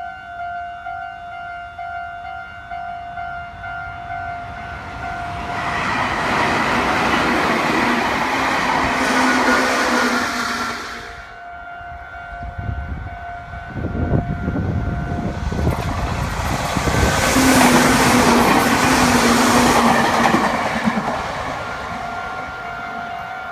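Two Meitetsu electric trains rumble past one after the other over a level crossing, the first from about five seconds in and the second, louder, from about fourteen seconds. Behind them the crossing's electronic warning bell keeps ringing its steady repeating tone, which stands out again as the second train clears.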